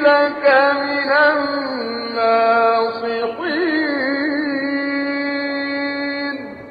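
A male Quran reciter's unaccompanied voice in melodic (mujawwad) recitation, drawing out long vowels with ornamented turns in pitch, then holding steady notes that step to new pitches. The held note stops near the end.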